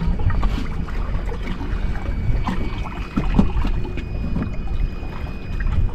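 Small boat under way on choppy water: the outboard motor runs as a steady low rumble, mixed with wind on the microphone.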